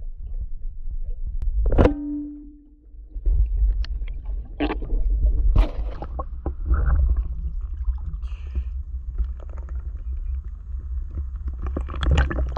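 Water noise on a camera at and below the water surface: a steady low rumble with scattered clicks and knocks, a sharp click about two seconds in followed by a short hum, and denser sloshing and splashing near the end.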